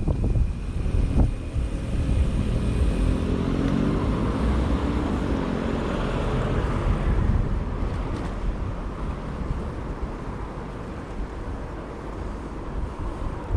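Wind buffeting the microphone of a moving bicycle rider, a heavy uneven rumble, while a motor vehicle passes: its engine and tyre noise swell to a peak about six seconds in, then fade away.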